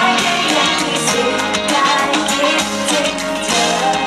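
Live pop band performance over a stage PA: female vocals singing over drum kit, electric guitar and bass guitar.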